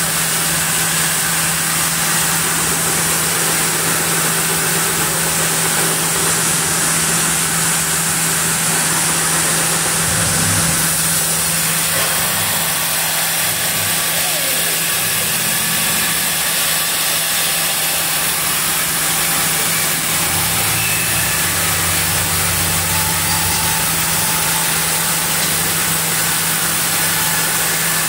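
Sawmill band saw running with a steady hum and hiss as the carriage feeds a camphor log through the blade, slabbing it.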